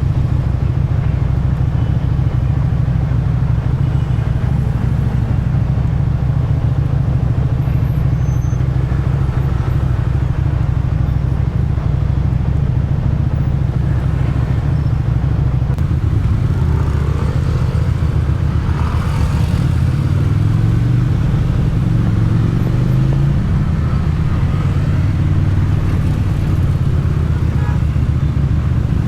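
Motorcycle engine and exhaust running steadily under way, heard from the rider's position, with the engine speed rising and falling a few times about two-thirds of the way through.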